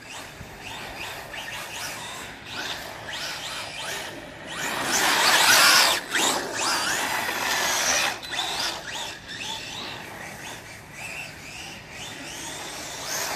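Brushless electric motor of an RC rally car on a 3S battery whining as it accelerates and drifts, its pitch rising and falling with the throttle. It is loudest about five seconds in, as the car passes close.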